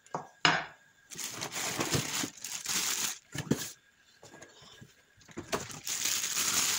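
Clear plastic bag crinkling around a new angle grinder as it is handled and lifted out of its cardboard box, in two spells of a couple of seconds each, with a brief sharp rustle about half a second in.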